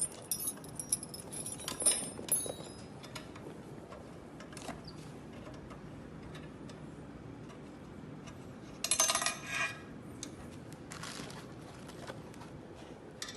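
Small metal tool keys clinking and jingling as they are handled. A few clinks come in the first couple of seconds, and a brighter ringing metal clatter comes about nine seconds in.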